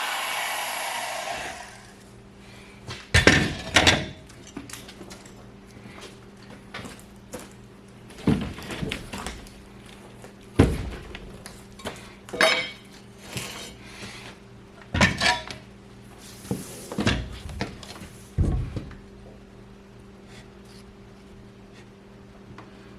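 Power saw spinning down at the end of a cut into a green timber, then irregular knocks and clunks of wood and tools being handled, over a faint steady hum.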